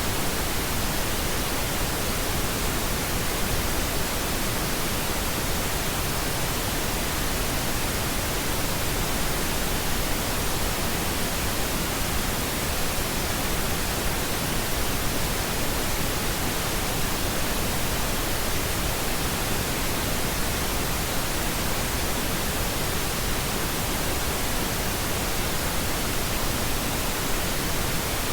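Steady pink noise: an even, unbroken hiss with no change over the whole stretch.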